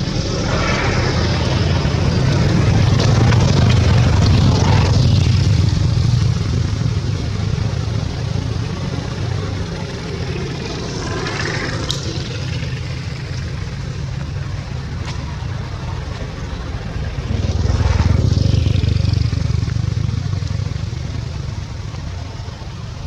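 Motor traffic: a steady engine rumble that swells twice as vehicles pass.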